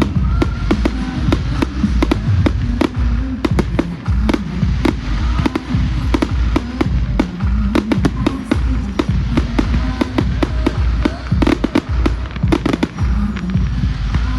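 Fireworks going off in rapid succession: dense, sharp bangs and crackles several times a second over a continuous low rumble, with music playing underneath.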